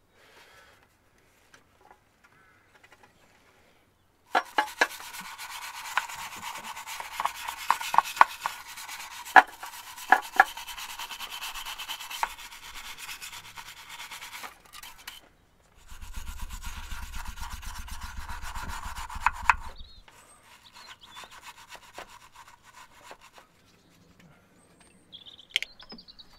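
Stiff brush scrubbing dirt and old silicone sealant off a BMW M10 engine's valve cover, with sharp knocks now and then as it hits the metal. The scrubbing starts about four seconds in, breaks off briefly past the middle, starts again, and goes lighter near the end.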